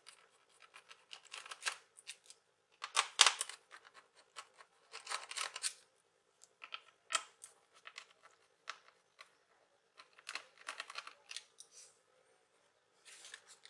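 Small screwdriver turning out the screws of a laptop's plastic hard disk and RAM compartment door: irregular bursts of short scraping clicks with pauses between, the loudest about three seconds in.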